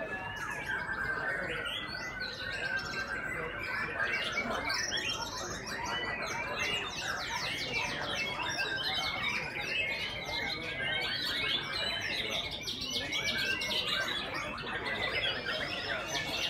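Many caged white-rumped shamas (murai batu) singing at once: a dense, continuous tangle of overlapping whistles, trills and chirps.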